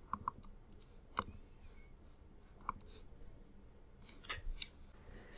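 Quiet computer mouse clicks: a double-click near the start, as a Finder folder is opened, then single clicks about one and two and a half seconds in and a few more near the end.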